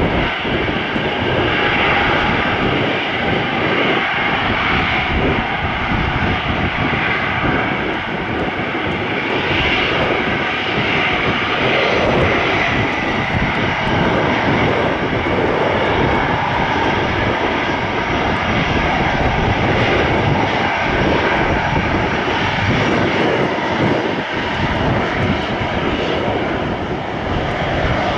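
An Airbus A340-300's four CFM56 turbofan engines running loud and steady as the airliner taxis: a dense jet rush with a faint whine layered over it.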